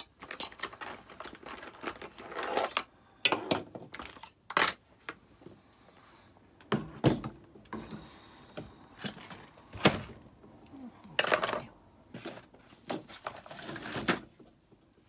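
Craft supplies being handled and moved about on a work table: scattered clicks, knocks and rustles at irregular intervals.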